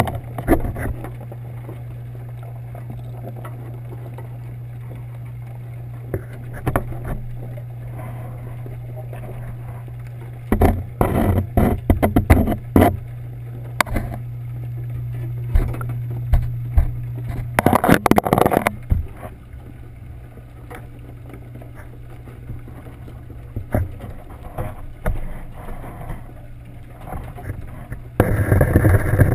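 Underwater in a fishing boat's crab holding tank: a steady low machinery hum, with bursts of clicking and knocking. The hum cuts out a little past halfway, and a louder rushing noise starts near the end.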